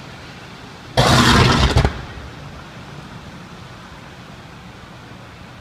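An underground blast from a smoking street manhole, about a second in: sudden and very loud, lasting just under a second and ending in a few sharp cracks. Around it, steam escaping from the street makes a steady rushing noise.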